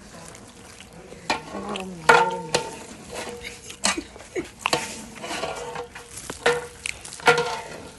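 Metal cooking utensils knocking and scraping against pots, in irregular clanks, some with a brief metallic ring, over a light sizzle of frying.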